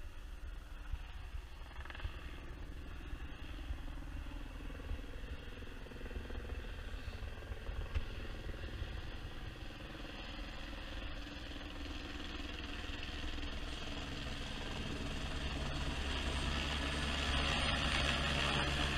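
Helicopter approaching with a load slung on a long line beneath it: a steady rotor and engine rumble that grows louder over the last few seconds as it nears.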